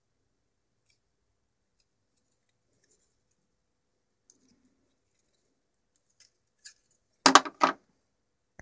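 Small plastic-cased circuit board being handled on a hard worktop: a few faint taps, then two sharp clacks close together near the end.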